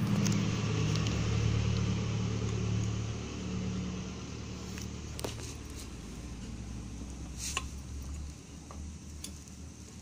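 A motor vehicle engine running with a steady low hum, loudest for the first few seconds and then easing off, with a few sharp light clicks about five and seven and a half seconds in as a hand tool works in the wheel hub.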